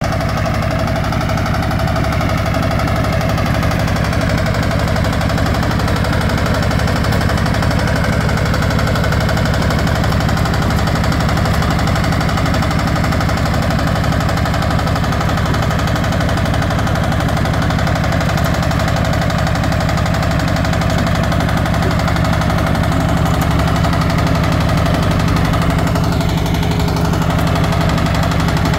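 Walk-behind two-wheel tractor's single-cylinder diesel engine running steadily with a fast, even pulsing beat, driving a rotary tiller that churns through field soil.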